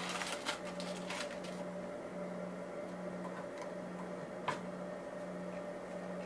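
A low machine hum that pulses about every three quarters of a second, with a fainter steady tone above it. Light handling and rustling of a plastic test tube and syringe by gloved hands in the first second or so, and one sharp click about four and a half seconds in.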